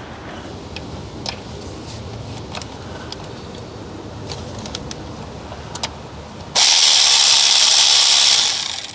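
Light metallic clicks and clinks of a socket wrench working on engine valve cover bolts. About six and a half seconds in, a loud steady spraying hiss starts suddenly, lasts about two seconds, then tapers off.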